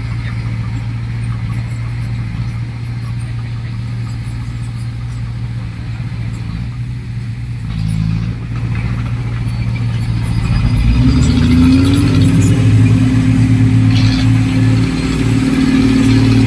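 Heavy diesel engine of earthmoving equipment running steadily, then revving up and working harder about ten seconds in.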